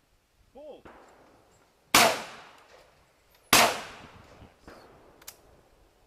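Two shotgun shots about a second and a half apart, fired at a pair of clay targets, each with a short echoing tail. A few faint clicks follow near the end.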